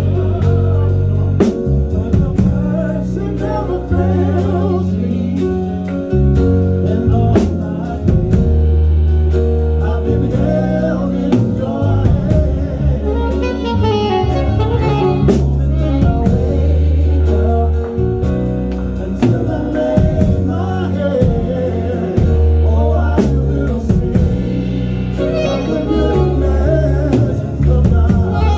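A live band plays: a four-string electric bass holds deep sustained notes, a drum kit keeps a steady beat, and a wavering melody line rides above them.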